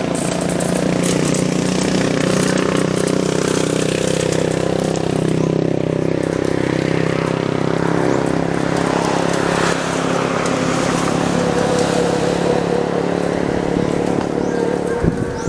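A vehicle engine running steadily at an even speed, its note shifting slightly about ten seconds in.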